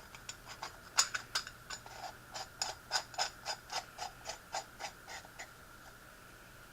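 Light metal clicks, about three a second, from the parts of an antique brass horn speaker being worked back together; they stop about five and a half seconds in.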